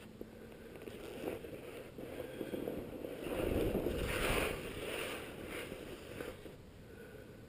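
Skis hissing and scraping over packed snow through a series of turns, swelling loudest a little past the middle, then several shorter surges.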